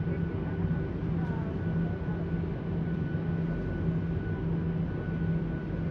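Cabin noise of a Boeing 737-800 taxiing: its CFM56-7B engines at taxi power give a steady low drone with a thin, steady whine above it.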